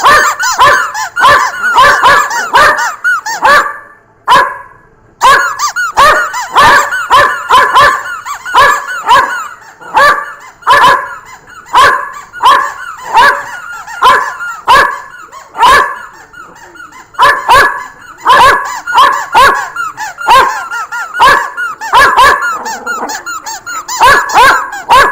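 A dog biting a squeaky plastic chicken toy, making it squawk over and over, two or three times a second, with a short pause about four seconds in.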